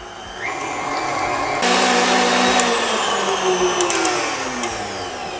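Electric stand mixer with a wire whisk beating cream cheese and butter in a glass bowl. The motor comes up to speed, steps up to a higher speed about a second and a half in, then slows with a falling pitch near the end.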